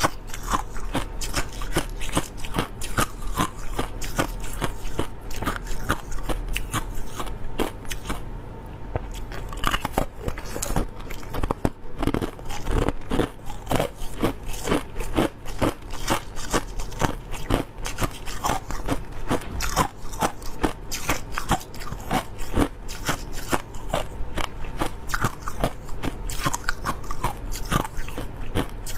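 Crushed clear ice being bitten and chewed close to the microphone: a dense, irregular run of sharp crunches and cracks, with a short lull about eight seconds in.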